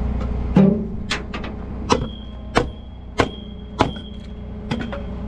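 Tow truck engine idling steadily under a run of sharp knocks, most about two-thirds of a second apart, with a thin high steady tone joining about two seconds in.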